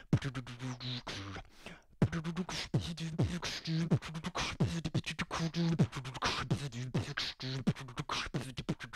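Human beatboxing: a quick vocal beat of mouth clicks and hissing snares over kick sounds that drop in pitch and hummed low bass notes, with a brief break about two seconds in.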